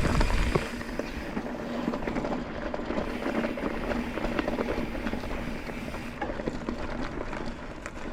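Mountain bike rolling over a rough dirt trail, its tyres crunching and the bike rattling with many small knocks. Wind buffets the microphone for about the first second.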